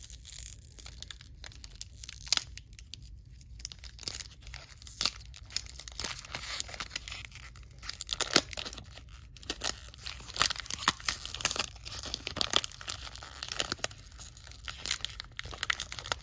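Wrapper of a 1993 Topps baseball card pack being torn and peeled open by hand, with irregular crackling and crinkling throughout.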